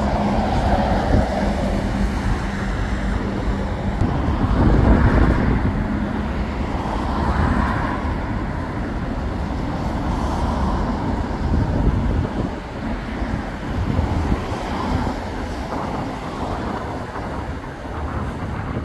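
Road traffic passing: cars and a lorry driving by, their tyre and engine noise swelling and fading as each one passes, loudest about five seconds in.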